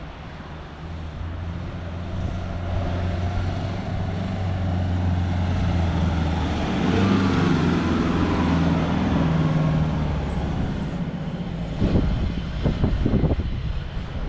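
Subaru Crosstrek's flat-four engine running hard under load as the car drives up a soft sand dune, its note rising and falling. A few knocks near the end.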